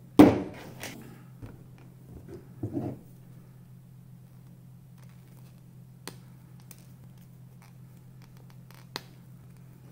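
A few faint, sharp clicks and small scrapes of a hand wire stripper being handled and worked on a wire, over a steady low hum. A short vocal sound at the very start is the loudest thing.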